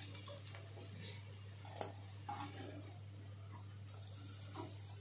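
Faint clinks and scrapes of a steel slotted spoon against a kadhai as fried jackfruit pieces are lifted out of the oil, over a steady low hum.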